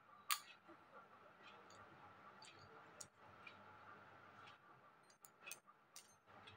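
Near silence with faint room tone, broken by a few light scattered clicks from the bangles on the wrists knocking together as the arms move; the sharpest click comes just after the start.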